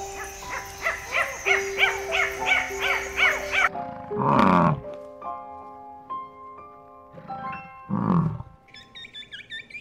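Ring-tailed lemurs calling in a quick series of short rising-and-falling calls, about three a second, then a bison bellowing twice, each a deep call that slides down in pitch. Light music plays underneath.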